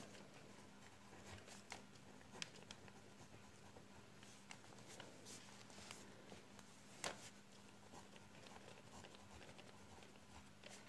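Very faint scratching and light clicks of a ballpoint pen writing on lined paper, the sharpest click about seven seconds in, over a faint steady hum.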